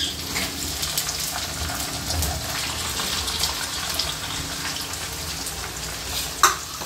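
Raw liver pieces going into hot oil with frying onions and sizzling steadily in a non-stick pan. There is one sharp knock near the end.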